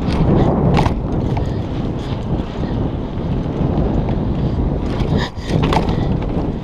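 Wind buffeting a chest-mounted action camera's microphone while a BMX bike rolls along pavement. The tyres rumble underneath, and scattered clicks and rattles come from the bike. The noise drops briefly a little after five seconds in.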